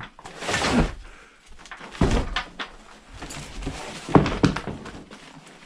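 Someone moving across a damaged wooden floor: scraping and rustling of debris near the start, then heavy knocks and thuds, the loudest about four seconds in.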